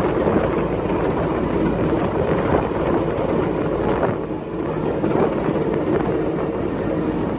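Amphibious Duck tour vehicle driving on land, its engine and road noise running steadily, easing briefly about four seconds in.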